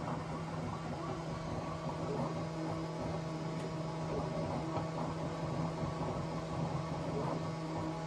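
Bambu Lab X1 Carbon 3D printer running a print on rubber anti-vibration feet: a steady hum with a shifting mechanical whir from its motors and fans.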